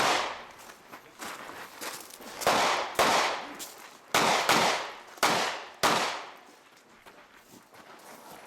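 Rapid rifle shots, about seven loud reports in uneven pairs and singles over six seconds, each trailing off in an echo, quieter after that.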